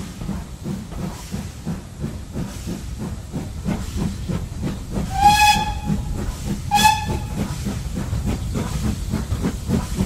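Old steam locomotive running with steam hiss and a quick, regular beat, and two short blasts on its steam whistle about five and seven seconds in, each one steady pitch.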